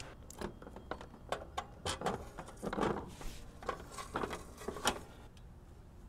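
Irregular clicking and scraping of stiff insulated copper wire (number 6 THHN) being pulled through PVC conduit and handled at a metal breaker panel, stopping near the end.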